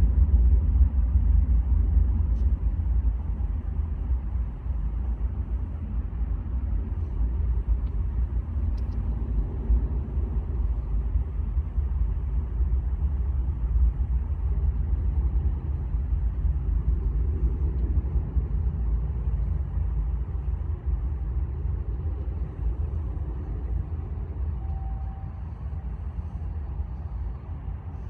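Low, steady rumble of a Boeing C-17 Globemaster III's four jet engines on its landing approach, slowly fading near the end.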